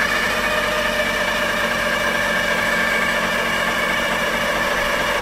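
The DROTT excavator's diesel engine turning over on its starter: a steady, even mechanical whine that cuts off suddenly near the end without the engine catching. The crew put this down to fuel starvation: the engine isn't getting enough fuel or fuel pressure.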